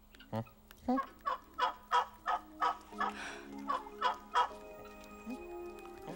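Young turkey vulture giving a rapid run of gobbling calls, about ten in three and a half seconds, while feeding. Soft music comes in under it about three seconds in.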